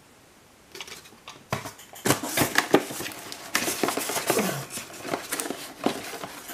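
Cardboard shipping case and boxed diecast cars being handled: a string of scrapes, rustles and light knocks starting about a second in, as a tight-fitting car box is worked out of the case.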